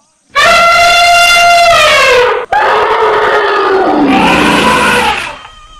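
Asian elephants trumpeting: a long, loud trumpet call of about two seconds, then straight into a second, lower call that dips in pitch and rises again before fading near the end.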